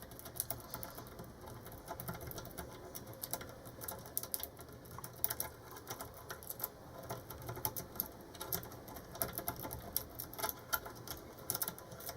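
A city rake rocked in and out of the keyway of a Jaco 38mm pin-tumbler padlock, giving a quick, irregular metallic clicking as the five standard pins chatter against it under tension. The lock does not open.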